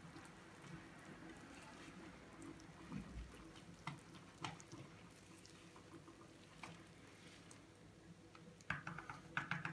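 Faint wet squelching of a silicone-coated whisk stirring thick yogurt-and-flour batter in a plastic bowl, with scattered soft clicks and a quicker run of them near the end.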